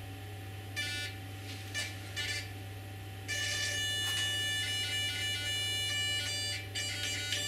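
Model helicopter's tail-rotor pitch servo buzzing in short spurts as its travel limit is stepped up, then holding at full deflection with a steady high buzz from about three seconds in. A constant low hum runs underneath.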